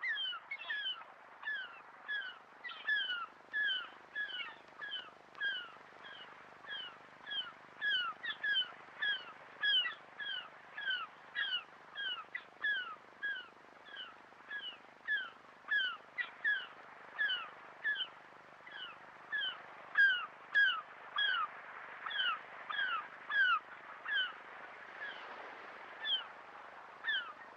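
Gulls calling over and over: short falling cries about two a second, over a faint steady hiss.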